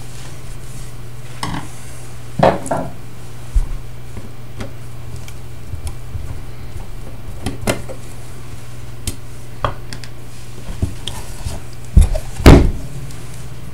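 Screwdriver clicking and scraping on the metal case of an aircraft flight recorder as its cover screws are worked out, with scattered knocks of the box and tool on a wooden table; the loudest pair of knocks comes near the end. A steady low hum lies under the clicks.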